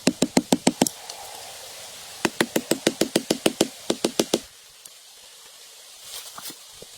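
Rapid, evenly spaced knocks, about seven a second, in two runs with a pause between them. After that only a faint steady hiss is left.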